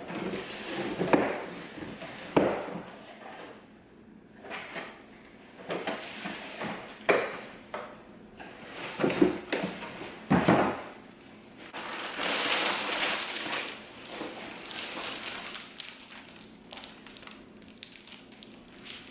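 Ring light kit being unboxed by hand: cardboard box and packaging handled, with scattered knocks and clatters and a longer stretch of rustling about twelve seconds in.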